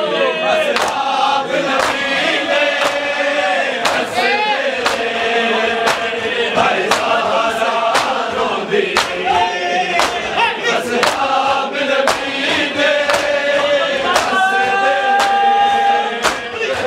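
A group of men chanting a Punjabi noha (Shia lament) together, with a regular slap of hands beating on chests (matam) about three times every two seconds.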